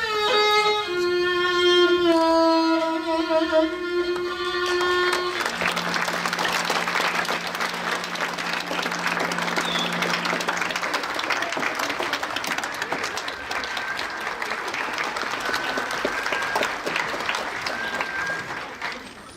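Live instrumental music plays its last held notes and stops about five seconds in. An audience then applauds and the clapping dies away near the end.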